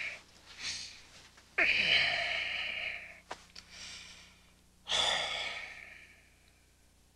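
A man sighing heavily twice: two long exhalations, each starting suddenly and trailing off, a few seconds apart.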